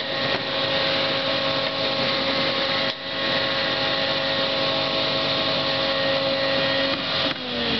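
Combination woodworking machine (planer-thicknesser, saw, moulder and mortiser in one) running steadily with its motor's hum and whine, dipping briefly about three seconds in. Near the end the pitch starts to fall as the machine begins to spin down.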